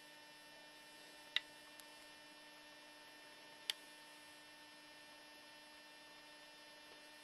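Faint, steady electrical hum with two short clicks, one about a second and a half in and one just under four seconds in.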